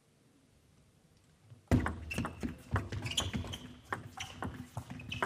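Near silence at first. About a second and a half in, a table tennis rally begins: quick, sharp clicks of the celluloid-type ball striking bats and bouncing on the table, a few tenths of a second apart.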